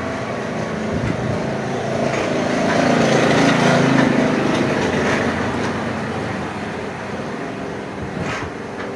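A motor vehicle engine passing by, growing louder to a peak about three to four seconds in and then fading away.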